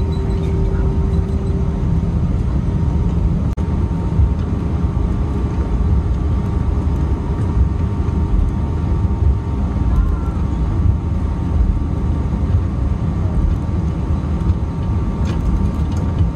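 Airbus A319 heard from inside the cabin: a loud, steady low rumble of engines and airflow, with faint steady tones above it.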